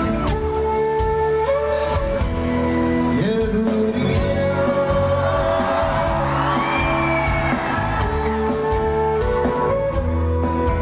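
Live band music heard from among the audience: a sustained melody of long held notes over a steady bass, with singing.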